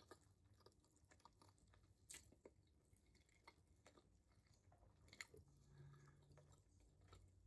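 Faint chewing of a bite of homemade Sloppy Joe sandwich: scattered soft, wet mouth clicks and smacks, with a brief low hum a little past the middle.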